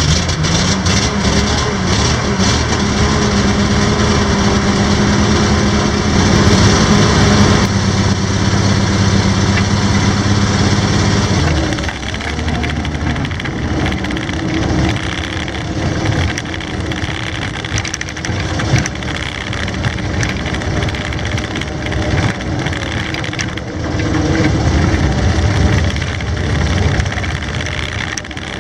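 Studebaker M29C Weasel's six-cylinder petrol engine running as the tracked vehicle drives across grass. The engine runs at a steady speed and then drops to a lower, quieter note about twelve seconds in, with the pitch wavering for the rest of the drive.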